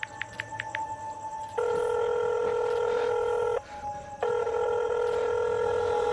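Phone ringback tone of an outgoing call waiting to be answered: two long steady ringing tones, each about two seconds, with a short break between them, starting about a second and a half in. Before the ringing there is a faint rapid ticking.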